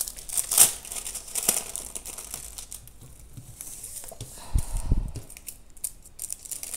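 Thin clear plastic protection sleeve crinkling and crackling as hands smooth it flat over a diamond-painting canvas. There are a couple of dull thumps about four and a half seconds in as the canvas is shifted on the wooden table.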